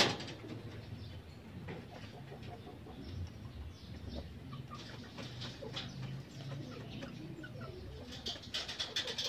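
A sharp click at the start, then the low steady rumble of a handheld gas torch flame being passed over a wire rabbit cage to disinfect it, with birds calling in the background.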